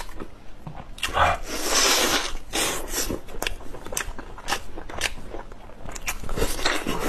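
Close-miked chewing and gnawing as meat is bitten and pulled off a braised pork rib bone, with many wet smacks and clicks and a longer noisy stretch about a second in.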